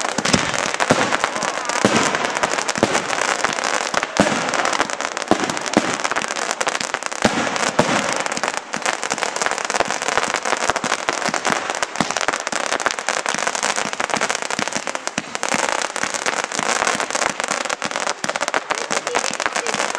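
Fireworks barrage going off: dense, continuous crackling from gold crackle bursts, with scattered louder bangs.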